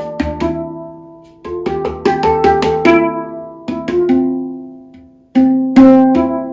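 Handpan played with the hands: quick runs of struck, ringing steel notes with soft low thumps, in phrases that ring out and fade before the next begins, about every second and a half to two seconds.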